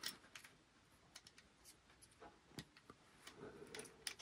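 Near silence with a few faint, scattered clicks of small metal parts handled by hand as a nut is started on a pin of the chrome lamp arm.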